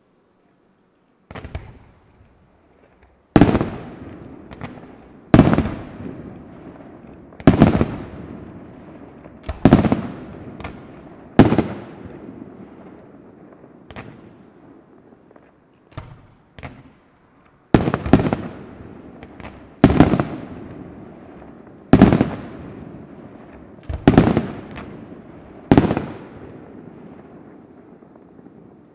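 Large aerial fireworks display: loud bangs about every two seconds, each followed by a long echoing rumble, with a few quieter pops between and a short lull in the middle.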